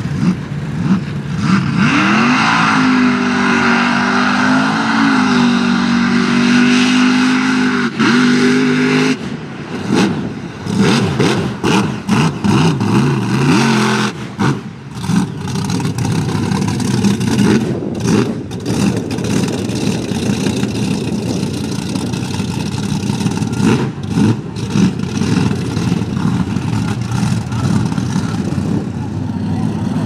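Supercharged big-block 540 V8 running on alcohol with a 14-71 blower, revving hard in a mud truck. For the first several seconds the revs rise and fall. Then comes a spell of uneven throttle with sharp dips and surges, and after that a steadier loud running.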